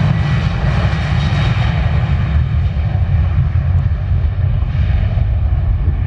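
A Boeing 737 airliner's twin jet engines at takeoff power as it accelerates down the runway past and away: a loud, steady deep rumble, with a higher whine that fades after the first couple of seconds.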